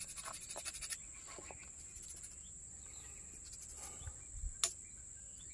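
Faint steady high-pitched shrilling of insects, pulsing rapidly for the first second, with a single sharp click a little past four and a half seconds in.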